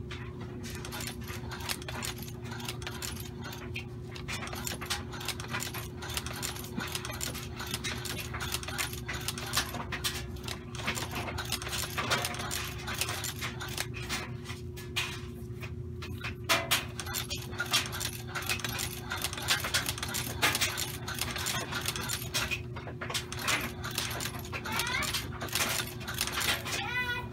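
Hand-cranked sewing machine stitching through thick layers of fabric, plastic and foam, its needle and feed mechanism making a fast, continuous clicking and clattering as it is cranked.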